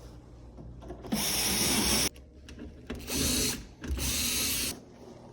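Cordless drill/driver running in three short spurts, the first about a second long, driving screws to reassemble an oven door.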